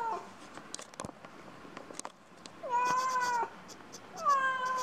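Domestic cat meowing: drawn-out meows of fairly steady pitch, a short one ending at the start, then two more about a second and a half apart, the last still going at the end. A few faint clicks between the calls.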